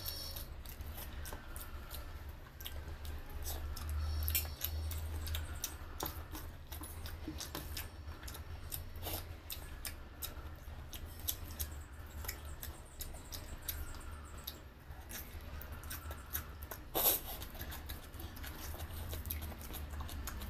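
Close-miked eating by hand: wet smacks, clicks and chewing of rice and egg curry, with fingers squishing rice into gravy on a steel plate, and one sharper click about 17 seconds in. A steady low hum runs underneath.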